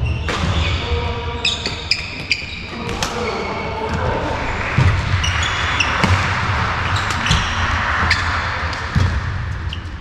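Badminton rally in a large sports hall: sharp pops of rackets striking the shuttlecock and short squeaks of court shoes on the floor, echoing in the hall.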